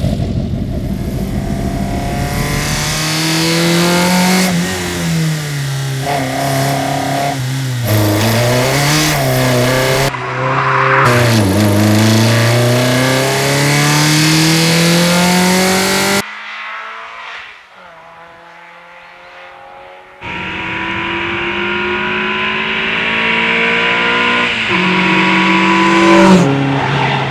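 Mazda MX-5's tuned 1.6-litre naturally aspirated four-cylinder with individual throttle bodies and velocity stacks, first idling, then revving hard toward 8500 rpm. The pitch climbs in long sweeps and falls sharply at each gear change. It goes quieter for a few seconds past the middle, then climbs again through a long pull.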